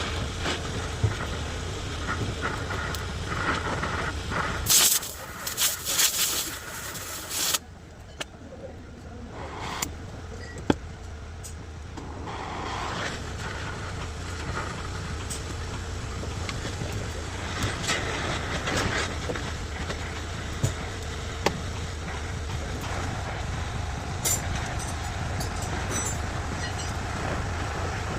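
A vehicle engine running steadily at idle, with a loud burst of hissing from about five seconds in and scattered sharp clicks.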